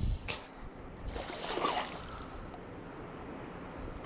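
Water sloshing and splashing around a small boat, with wind on the microphone: a low knock at the very start and a louder splashy rush about a second in, then a steady low wash.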